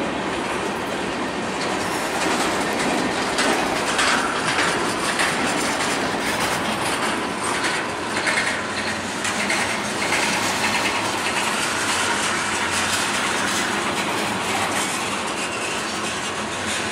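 Freight train cars, tank cars among them, rolling past close by: a steady rumble of steel wheels on rail with repeated clicks as the wheels cross the rail joints.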